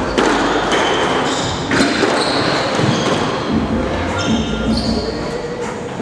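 Squash ball rallying: several sharp smacks as the ball is struck by rackets and hits the walls and floor, with short high squeaks of court shoes on the floor between them.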